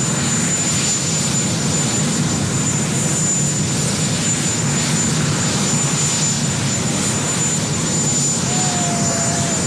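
Marine One, a Sikorsky VH-3D Sea King helicopter, running steadily on the ground with its turbine engines on: a loud, even mechanical noise with a thin high whine running through it.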